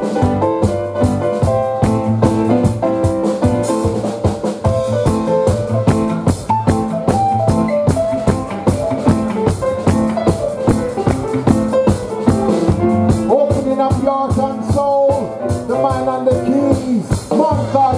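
Reggae band playing an instrumental passage: drum kit with a steady, busy hi-hat beat, bass, electric guitar and a Roland Fantom-X7 keyboard carrying melodic lines. Near the end, some sliding, wavering tones come in.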